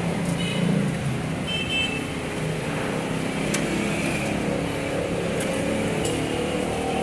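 Steady engine and road noise of a vehicle on the move, with traffic around it. Two short high-pitched tones sound about half a second and a second and a half in.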